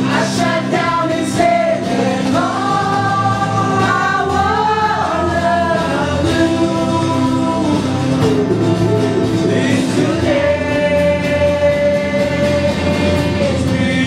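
Male vocals singing a song to acoustic guitar accompaniment, performed live into microphones. About ten seconds in the singing settles into one long held note.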